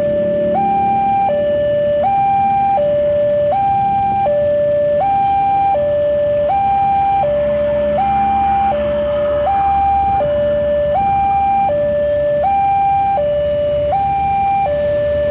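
Railway level-crossing warning alarm sounding: an electronic two-tone signal that alternates steadily between a lower and a higher tone, switching about every three-quarters of a second, over a low rumble of road traffic.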